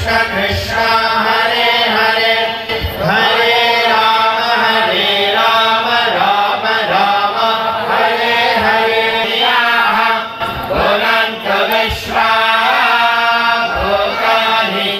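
Kirtan: voices chanting a mantra to a melody over a steady drone, with mridanga drums and small hand cymbals (karatalas) accompanying.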